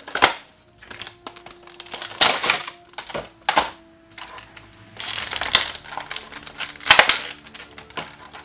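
Cardboard collectible box and clear plastic tray being handled and pulled apart: a run of crinkling plastic and scraping cardboard rustles with sharp clicks, several louder crinkles standing out.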